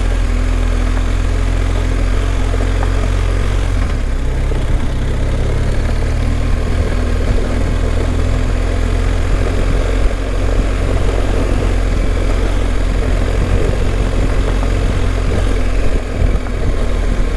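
Motorcycle engine running steadily as the bike rides along, with a strong low rumble throughout; the engine note shifts slightly about four seconds in.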